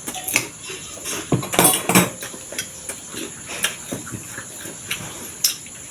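Close-miked eating: wet chewing and mouth sounds with scattered light clicks of cutlery against a plate or bowl, busiest and loudest about a second and a half in.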